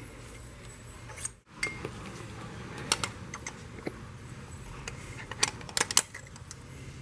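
Metal tool clinks and taps as a socket on an angle-torque gauge is handled and fitted onto a cylinder head bolt: a scatter of short, sharp clicks, loudest near the end.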